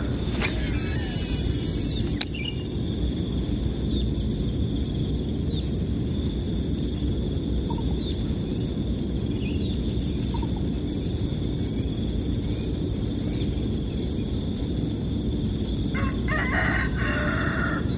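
A rooster crowing once near the end, over steady outdoor background noise with a few faint scattered bird chirps.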